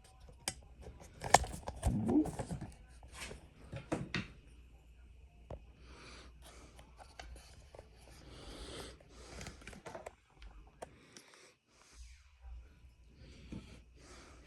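Scattered light knocks, clicks and rubbing of wooden cutouts being handled and set down, with a louder cluster of knocks about a second or two in.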